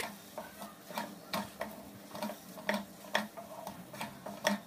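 Wooden spatula tapping and scraping against a non-stick kadhai while scrambled eggs are stirred: an irregular run of light knocks, about two or three a second, the sharpest at the start and near the end.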